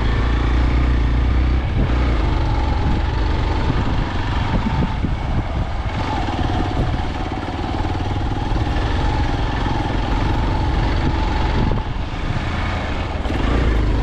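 Motorcycle engine running while riding along a rough off-road track, with a continuous low rumble. A steady, higher engine note holds from about two seconds in until nearly twelve seconds.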